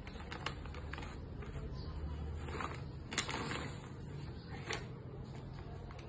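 Clear plastic garment pouch crinkling and rustling as it is handled and opened, with a few sharp crackles, the loudest about three seconds in, over a low steady hum.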